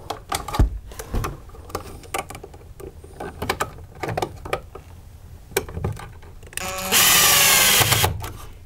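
Cordless drill-driver running for about a second and a half near the end, driving a mounting screw of a receptacle into a plastic electrical box. Before it, scattered clicks and knocks of the receptacle and box being handled.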